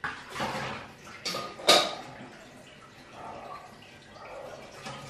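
Water splashing from a kitchen tap while dishes are handled, with a sharp knock of crockery about a second and a half in.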